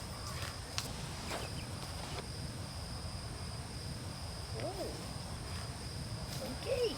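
Woodland ambience: a steady high-pitched insect drone over a low rumble, with a few light clicks in the first couple of seconds and a short faint arching call a little past the middle.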